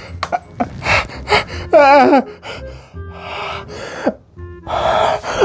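A man gasping and huffing sharp breaths through an open mouth, reacting to the burn of very spicy ramen, with one wavering, quavering cry about two seconds in. Background music plays underneath.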